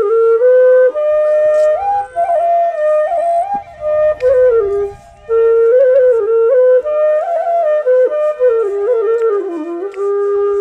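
Bansuri (bamboo flute) playing a solo melody with sliding, ornamented notes, with two short pauses between phrases.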